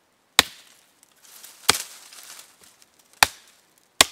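Hatchet chopping a branch laid across a tree stump: four sharp strikes of the blade into the wood, unevenly spaced about one to one and a half seconds apart.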